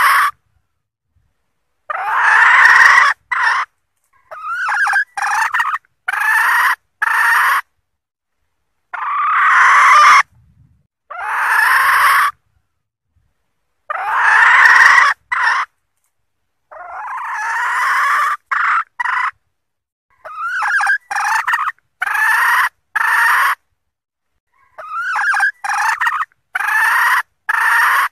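Junglefowl hen giving its cackling mating-solicitation call (ngekek), the call used to lure wild junglefowl. Harsh rising calls of about a second alternate with runs of short clipped notes, each group cut off abruptly by silence.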